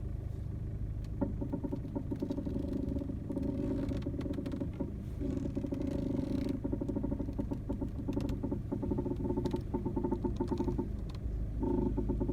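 VW Golf Mk7 1.6 TDI steering creaking and knocking as the wheel is turned, in stretches of a few seconds with short breaks and scattered clicks, over the steady hum of the idling diesel engine. The owner takes it for a common Mk7 steering fault.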